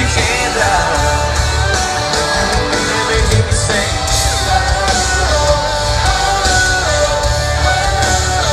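Loud live band music with a singer, heavy bass and guitar, recorded from the crowd on a phone's microphone.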